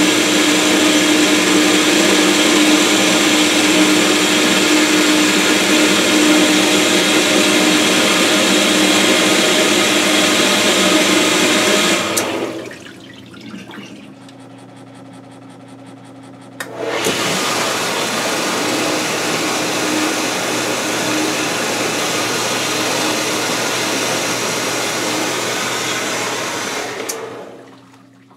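Maytag WU482 dishwasher's motor driving its pump through a newly fitted, greased belt, running steadily with a hum. It cuts out about twelve seconds in, starts again about five seconds later, and runs down near the end.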